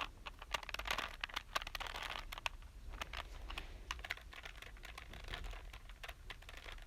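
Plastic clicking of a Rubik's Cube's layers being twisted by hand, in quick irregular runs that thin out after the first few seconds.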